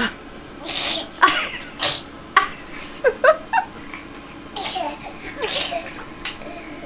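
Laughter with a baby's babbling and high giggling squeals, in a string of short breathy bursts.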